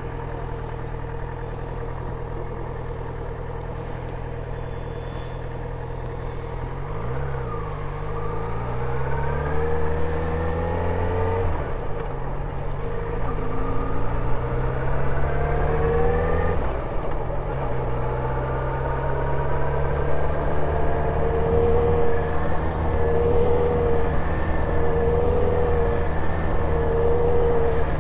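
Motorcycle engine idling, then revving as it pulls away. The pitch climbs twice, dropping about halfway through at a gear change. It then runs at a steady low speed with a regular rise and fall about once a second.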